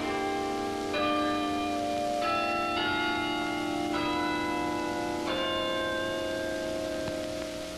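Tower bells struck one after another at different pitches, about once a second, each note ringing on under the next, like a slow tune on a set of chime bells.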